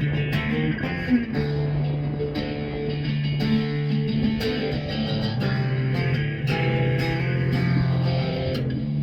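Background music: guitar-led instrumental with bass guitar, played at a steady level.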